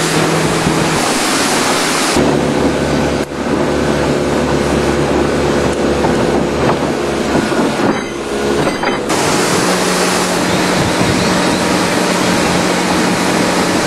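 Motorboat under way: the engine running steadily under a rush of wind and water noise, with a low hum that shifts twice.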